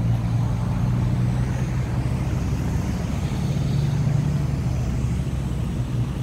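A motor vehicle's engine running steadily, heard as an even low hum.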